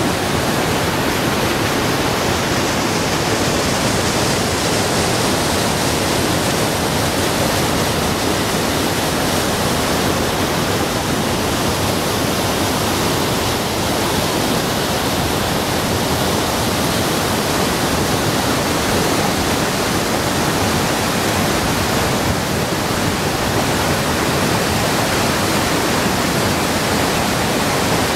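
Steady rush of a waterfall and white-water river rapids, an even, unbroken noise of falling water.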